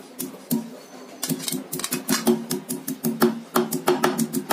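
Pieces of fresh ginger being pounded on a stone countertop with a heavy block to bruise them: a quick, irregular run of knocks, several a second.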